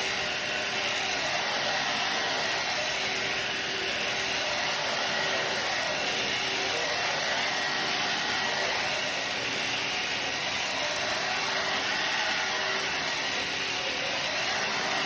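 Vacuum cleaner running steadily: an even motor-and-airflow hiss with a faint steady hum.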